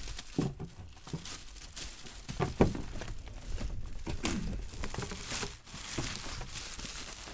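Plastic wrapping crinkling and tearing as a sealed trading card case is handled and unwrapped, with scattered knocks, the loudest about two and a half seconds in.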